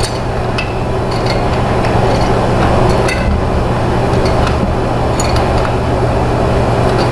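Groove-joint pliers turning the metal nut of a cord grip, making a scattering of sharp metallic clicks as the nut is tightened. Under them runs a steady, loud mechanical hum.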